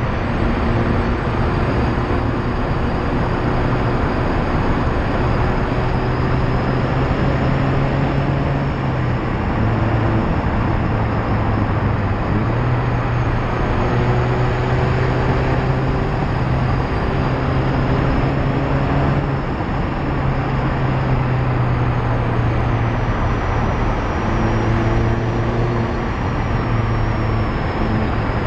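Mazda MX-5 ND2 driving fast, heard at bumper level: loud steady tyre and road noise over the car's four-cylinder engine note, which climbs gently in stretches and steps in pitch every few seconds.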